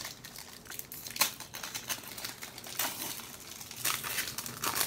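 Foil wrapper of a 2015 Panini Contenders Draft Picks football card pack crinkling and tearing as it is torn open by hand, in irregular crackles.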